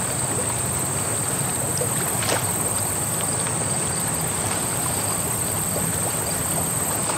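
Steady loud rushing noise like outdoor water ambience, with a continuous high whine over it. It cuts off abruptly just after the end.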